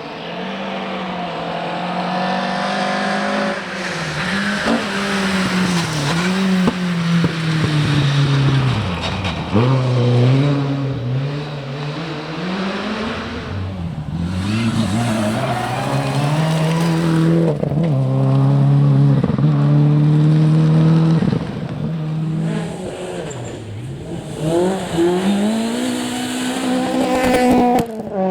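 Rally car engine revving hard through a stage, its pitch rising and dropping sharply several times as the driver lifts and changes gear, with a few sharp cracks near the end.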